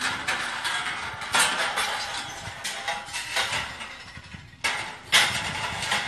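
Irregular metallic clanking and rattling of steel scaffolding frames being handled and fitted together, over steady outdoor noise. The sound drops away briefly about four and a half seconds in and comes back abruptly.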